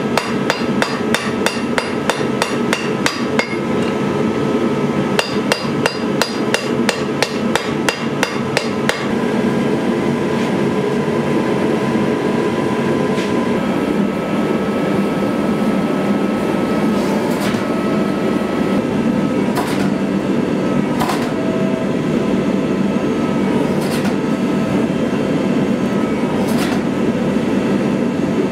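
Hand hammer striking a red-hot steel sword blade on an anvil in quick, even blows, about four a second, with a short break; about nine seconds in the hammering stops. From then on the forge runs with a steady rushing noise while the blade reheats, broken by a few single clinks.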